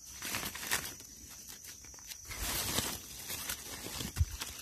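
Dry fallen leaves rustling and crackling as hands and a small knife work through the leaf litter and clean a freshly picked mushroom. A single sharp knock about four seconds in.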